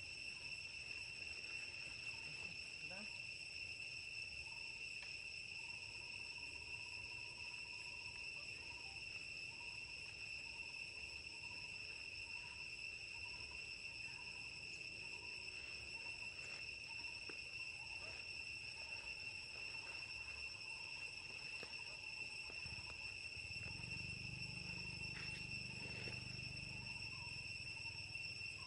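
Steady insect chorus in forest: one unbroken high-pitched whine with a fainter overtone above it, and a weaker on-and-off lower tone. A low rumble rises for a few seconds near the end.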